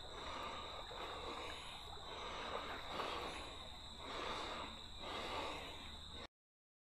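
Close breathing of a wader in deep water, soft swells about every second and a half, over a steady high insect drone. The sound cuts out abruptly near the end.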